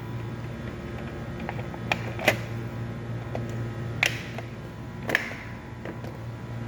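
Sharp plastic clicks and taps from handling the laptop's case and parts, four of them clear and a few fainter, over a steady electrical hum.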